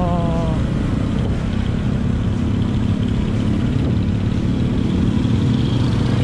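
Motorcycle engine running steadily under way in town traffic, heard from the rider's seat together with road and wind noise.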